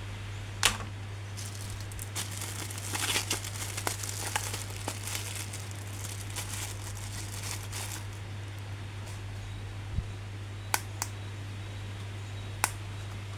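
Plastic packaging crinkling as an action figure is unboxed by hand, followed by a few sharp clicks, over a steady low hum.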